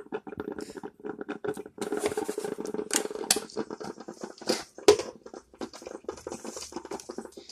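Handling noises from art-supply boxes: clicks, light knocks and rattling as a small wooden box of brushes and pens is handled and a lidded cardboard box with a metal clasp is opened, with one sharper knock about five seconds in.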